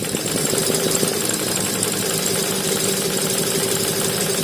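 HSW 12-needle high-speed embroidery machine running steadily, a fast even mechanical chatter with a steady hum.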